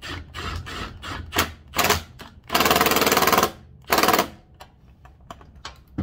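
Milwaukee cordless power tool driving a bike's front axle into its threads in two bursts with a rapid rattle: one of about a second, then a short one just after. Clicks and knocks from handling the tool and axle come before it.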